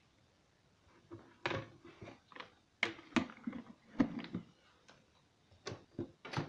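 Kitchen utensils and containers knocking and clattering irregularly, a dozen or so short knocks starting about a second in, as ingredients are measured and handled.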